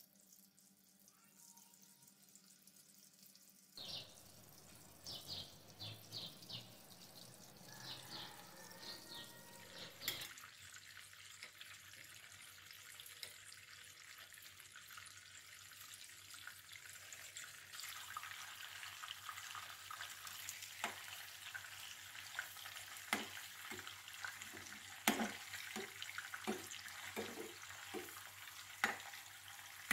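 Beef kofta meatballs shallow-frying in oil in a nonstick pan: a steady crackling sizzle that starts about four seconds in. In the second half, repeated sharp taps and scrapes of a spatula turning the meatballs in the pan.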